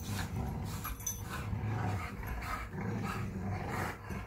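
Two dogs, a Rottweiler and a bulldog, play-fighting: low, rumbling play growls with snuffling as they wrestle mouth to mouth.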